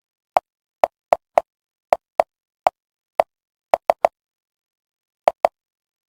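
About thirteen short, sharp clicks at uneven intervals, some in quick pairs and one triple, with dead silence between them.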